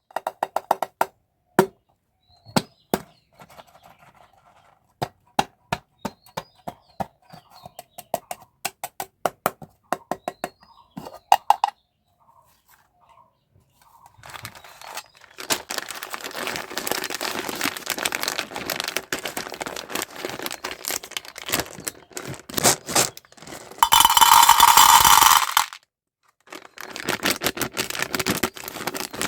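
Candy and toy packaging handled up close: a long run of small sharp plastic clicks and taps, then a sustained crinkling rustle of wrappers with a louder burst of crinkling or tearing near the end.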